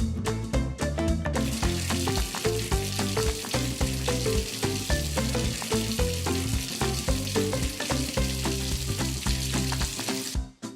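Background music with a steady hiss of water running, as when a paint stain on doll clothes is rinsed out by hand. The hiss starts about a second in and stops just before the end.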